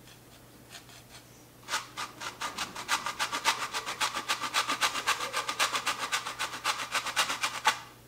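A block of hard cheese being grated on a handheld metal grater: fast, even rasping strokes, about six a second. They start about two seconds in and stop shortly before the end.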